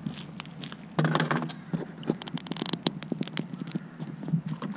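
Handling noise on a small FPV quadcopter's onboard camera: irregular clicks, taps and scrapes as the drone is picked up and turned over by hand, with no motor sound.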